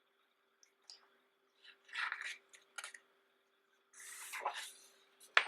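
Pages of a large, heavy photobook being handled and turned: paper rustling and sliding in two longer swishes about two and four seconds in, with a few lighter rustles and a sharp snap of paper near the end.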